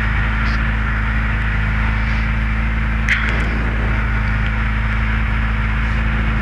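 Citroën Saxo F2000 rally car's engine idling steadily while the car sits stationary, heard from inside the cabin as an even low hum.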